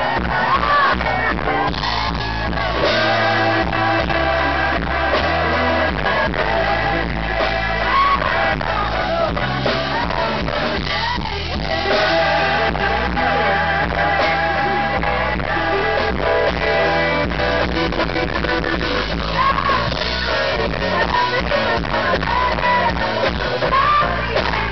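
Live blues-rock band playing loudly without a break: a woman's lead vocal and wavering electric guitar lines over bass and drums.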